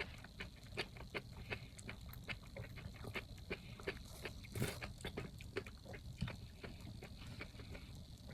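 Close-miked chewing of crunchy jellyfish: irregular crisp crunches, a few a second, with one louder crunch about halfway.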